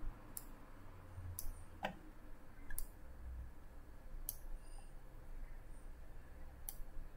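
Computer mouse button clicking: about six short, sharp clicks at uneven intervals over a faint low hum.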